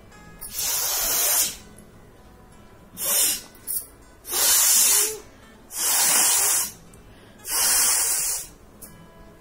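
A person blowing their nose hard, five forceful blasts of air through the nostrils, each under a second, with short pauses between them.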